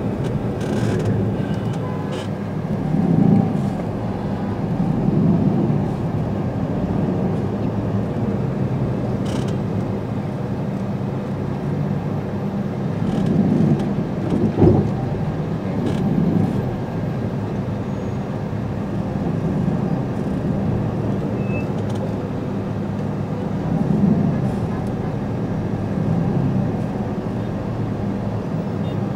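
Steady low rumble of a car in traffic heard from inside the cabin, with surrounding road traffic swelling and fading a few times and a single sharp knock about halfway through.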